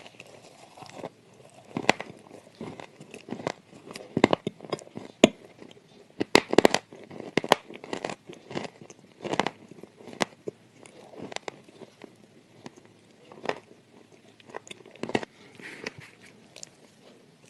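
Close-up crunching and chewing of sand clay: irregular sharp bites and crumbling crackles, densest about a third of the way in.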